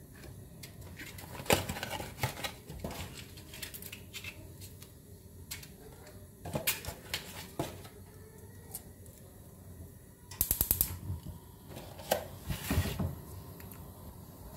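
Tea-bag sachets and a cardboard tea box being handled: wrapper crinkling and tearing with scattered clicks and taps, and a quick run of clicks about ten seconds in.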